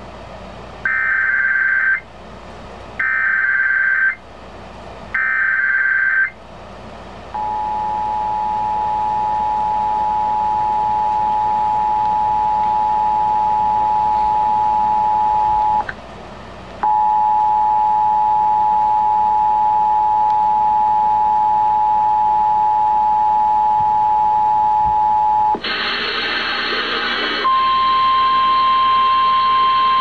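Emergency Alert System activation played through an FM clock radio's speaker: three short screeching bursts of the digital data header, about a second each, then the steady two-tone attention signal, which breaks off for about a second midway. Near the end it gives way to a harsher noisy sound and then a single steady tone.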